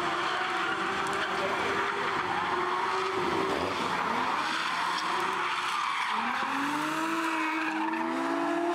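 Two drift cars tandem drifting, engines held high in the revs with tyres screeching under a continuous haze of tyre noise. The engine note dips a little past the middle, then climbs in two rising sweeps as the drivers get back on the throttle.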